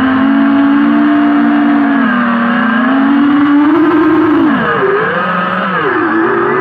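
FPV quadcopter's brushless motors and propellers whining, the pitch holding high and wavering slightly for about four seconds. In the second half it drops sharply and climbs back twice as the throttle is cut and opened again.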